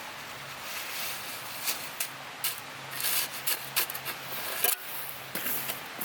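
Open wood fire crackling, with irregular sharp pops over a steady hiss.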